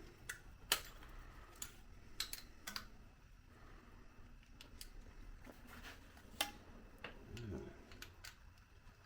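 Scattered light clicks and clinks of hand tools and metal hardware being handled during a shock absorber install, one every second or so, with two sharper clicks about a second in and near six and a half seconds.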